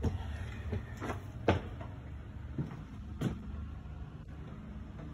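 Footsteps on a hardwood floor: a run of irregular knocks and thumps, the loudest about one and a half seconds in, over a low rumble.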